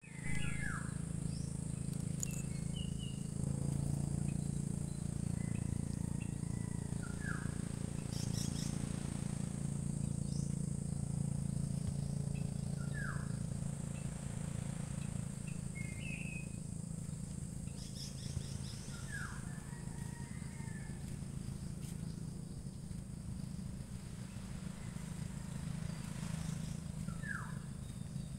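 A steady high-pitched insect drone, with a bird repeating a short downward-sliding call every several seconds, over a low steady hum.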